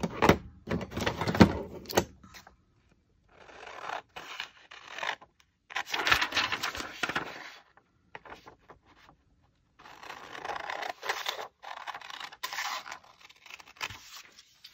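Paper being handled and slid across a work surface: rustling and scraping in three spells of one to two seconds each, with a few sharp clicks near the start.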